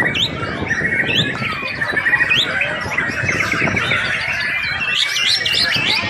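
White-rumped shama singing: a varied, continuous run of quick trills, sharp chirps and whistled notes, with a fast flurry of rising and falling high notes about five seconds in.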